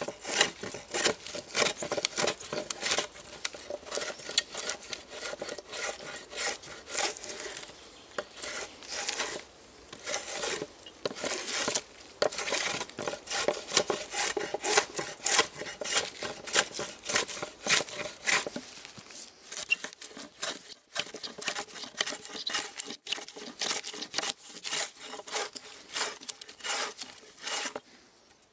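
Small metal hand plane shaving the face of a wooden plank in quick repeated strokes, each pass a short scrape of blade on wood.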